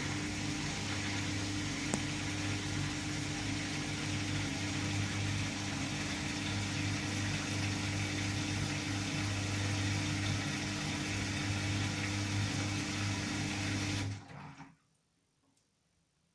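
LG FH0B8ND washing machine running with a steady motor hum, which cuts off about 14 seconds in and dies away within half a second.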